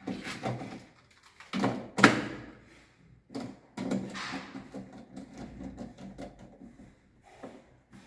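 Plastic miniature circuit breakers clattering and knocking together as they are handled and sorted, with a sharp knock about two seconds in and lighter clatters after.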